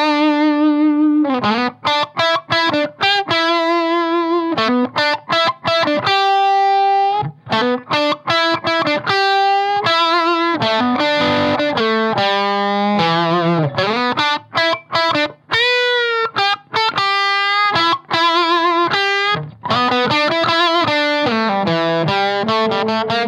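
Electric guitar played through a mid-boost pedal, set to its low 500 Hz mid frequency, into a Marshall valve amp driven into overdrive. It plays single-note lead phrases with string bends, vibrato and held notes, broken by short pauses.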